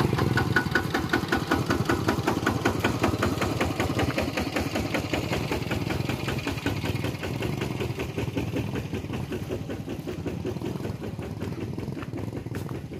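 Single-cylinder diesel engine of a two-wheel walking tractor chugging with a rapid, even beat as it hauls a trailer loaded with sawn timber. It grows gradually fainter as it pulls away.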